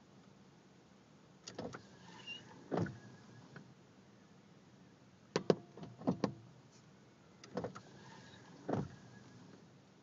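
A gull's beak pecking and knocking on a car's hood, heard from inside the car: sharp knocks in small groups, with the busiest run of four or five knocks about five and a half to six seconds in.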